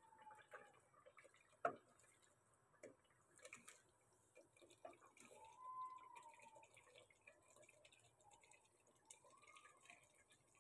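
Faint scraping and tapping of a metal spoon stirring masala frying in oil in an aluminium pressure cooker. There is a sharp knock of the spoon on the pot about a second and a half in, and a couple of short squeaky tones later on.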